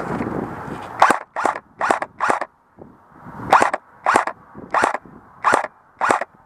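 Airsoft rifle firing single shots, nine sharp pops: four in quick succession, a pause of about a second, then five more at a slower pace. Wind noise on the microphone comes before the first shot.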